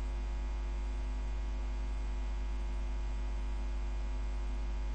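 Steady low electrical mains hum with a faint hiss, unchanging throughout.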